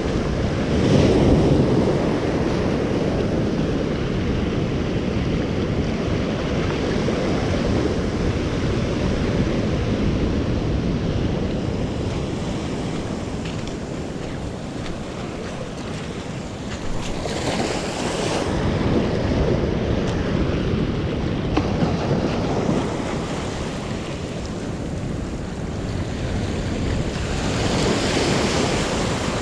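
Ocean surf breaking and washing up the beach close by, in swells that grow louder about a second in, again past the middle, and near the end, with wind on the microphone.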